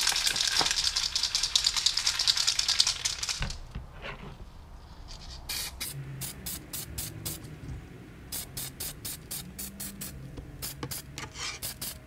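Aerosol can of DuraCoat spraying in one continuous hiss for about three and a half seconds, then a rapid run of short, sharp bursts, about four a second, to the end.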